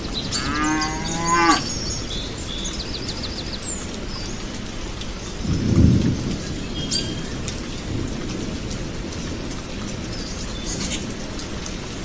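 Buffalo lowing once near the start, a pitched call lasting about a second. Around six seconds in there is a short low rumble, over a steady outdoor hiss with a few faint high bird chirps.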